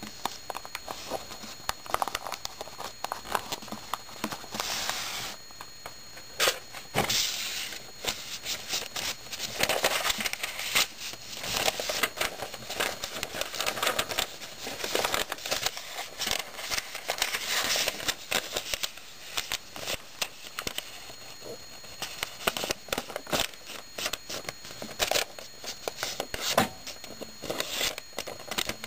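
Square origami paper being handled and folded by hand: irregular crisp rustling and crinkling with many sharp little clicks, coming and going in bursts.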